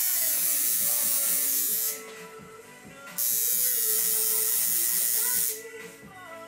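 Coil tattoo machine buzzing in two runs of about two seconds each, stopping for about a second in between. Background music plays underneath.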